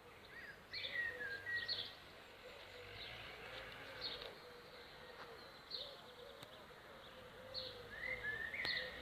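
Honeybees from a swarm buzzing faintly, a hum that wavers and bends in pitch as they fly about. Small birds chirp now and then, with a couple of rising calls near the end.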